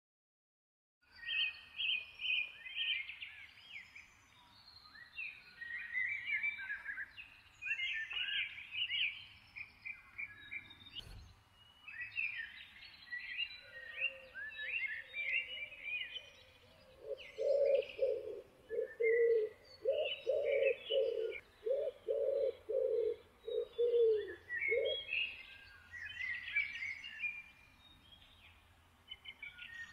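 Several wild birds chirping and singing, with a lower call repeated about ten times in a row around the middle.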